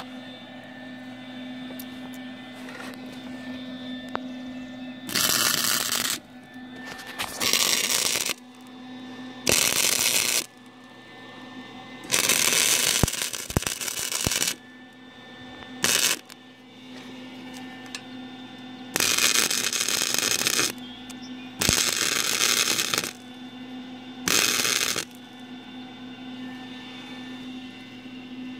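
Electric welding arc of a Lincoln Electric welder on a steel car exhaust pipe, crackling and sizzling in about eight short welds of one to two seconds each, with pauses between them. A steady hum carries on through the gaps.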